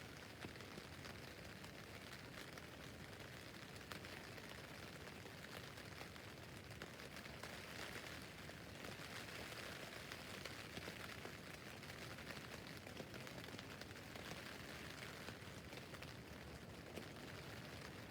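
Rain falling on a tent roof: a steady faint hiss thick with small drop taps, swelling a little around the middle.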